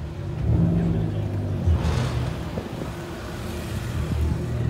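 Car engine running at idle, with a brief louder surge about two seconds in.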